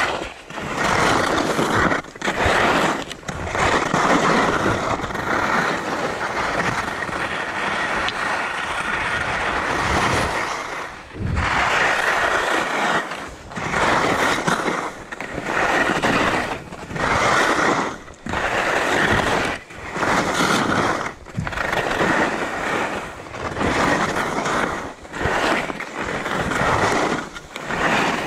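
Ski edges scraping over icy, hard mogul snow through a series of turns: a long steady scrape, then from about eleven seconds in a rhythm of scraping bursts about a second apart with short gaps between turns.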